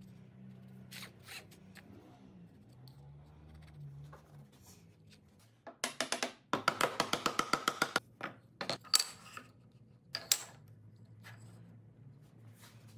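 Workshop handling noises: a rapid rattling run of clicks lasting about two seconds, then a few separate knocks, over a faint low background.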